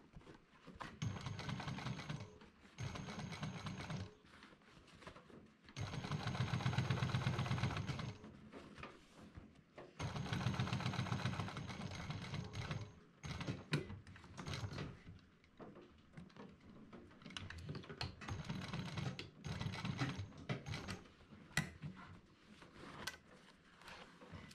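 Industrial sewing machine stitching heavy canvas in a series of short runs, each starting and stopping after one to two and a half seconds, the loudest about six seconds in. Between runs there are pauses with small clicks and handling sounds as the fabric is repositioned.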